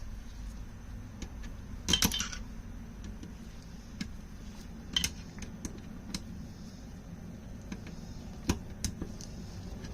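Small metal parts and hand tools clinking and clicking while a set of Mikuni carburetors is bolted into its rack: a short rattle about two seconds in, then scattered single sharp clicks, over a low steady hum.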